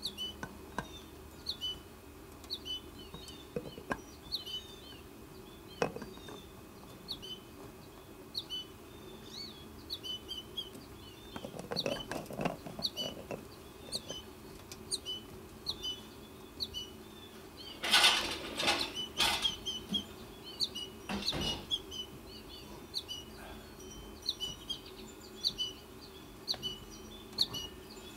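Goldfinch fledgling chirping: short, high calls repeated over and over. A few louder brief noises come around the middle and again a little later.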